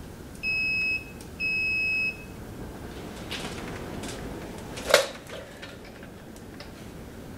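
Multimeter continuity beeper sounding twice, two steady high-pitched beeps each well under a second long, as the meter is set to audible continuity testing. A few faint handling clicks follow, and one sharp click about five seconds in.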